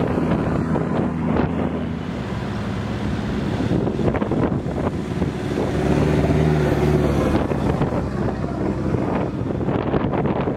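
Four-wheel-drive vehicles driving one after another up a soft sand track, engines droning, with the sound swelling as a white dual-cab ute passes close about six seconds in. Wind noise on the microphone runs under it.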